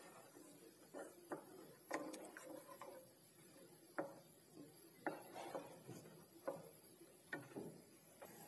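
Spatula stirring masala gravy in a nonstick kadai, scraping and knocking lightly against the pan in about ten irregular clacks.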